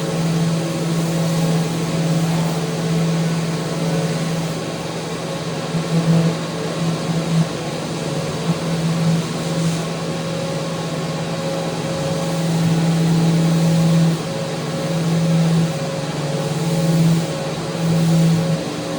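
Electric power sander running on wood: a steady motor hum with sanding noise, swelling and dipping every second or so as it is worked along the rail.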